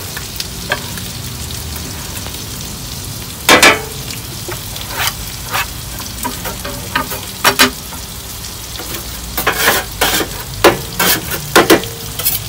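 Food sizzling on a hot griddle, a steady hiss, with sharp metal clacks of a utensil striking the plate now and then, coming in quick succession near the end.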